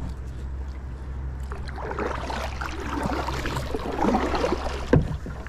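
Water splashing and sloshing around a kayak as something floating is pushed through the water, over a steady low hum. Near the end comes a single hard knock.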